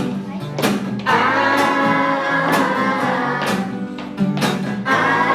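Background music led by a plucked guitar, with a steady beat.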